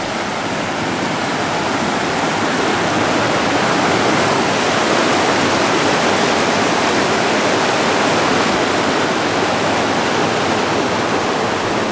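Mountain river rapids: whitewater rushing and splashing over rocks in a steady, loud roar, growing a little louder over the first few seconds.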